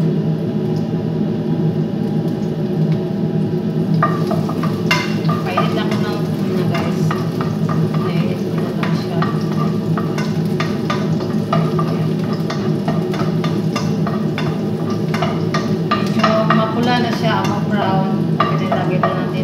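Chopped garlic sizzling in oil in a pan while a spatula stirs and scrapes it against the pan; the scraping and clicking start about four seconds in. A steady low hum runs underneath.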